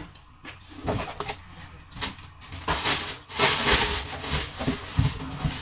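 Clear plastic bag crinkling and rustling, with scrapes against the cardboard box, as a plastic-wrapped pan is pulled out of it. The rustling comes in irregular bursts and is loudest a little past the middle.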